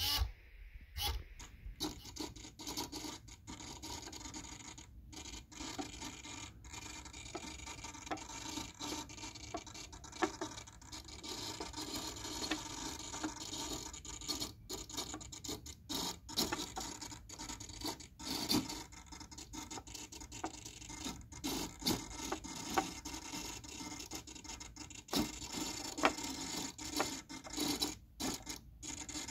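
A ball rolls over the tilting fibreboard of a BRIO wooden labyrinth game. From about two seconds in there is a continuous scratchy rolling, broken by frequent small knocks as it hits the wooden walls, over the steady buzz of the servomotors tilting the board.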